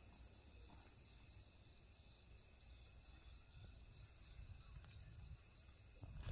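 Faint chorus of autumn grass insects, crickets: a steady high trill, with another insect chirping in even pulses about four times a second.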